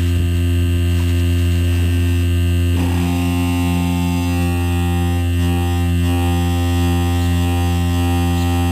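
Solar-heated Stirling-cycle diaphragm generator running: a loud, steady low hum with a stack of overtones, its vibration carried and amplified by the satellite dish it is mounted on, which the owner calls drumming. About three seconds in, as the dish is partly shaded to cut the excess heat, the rougher noise on top fades and the hum runs cleaner.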